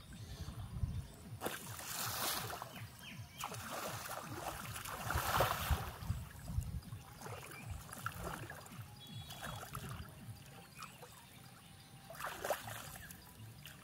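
Shallow muddy water sloshing and splashing as a person wades through it, in a run of splashes over the first several seconds, a few smaller ones later and one more surge near the end.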